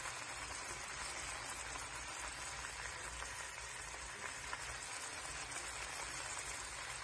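Coconut-milk egg korma gravy simmering in a pan: a steady bubbling sizzle.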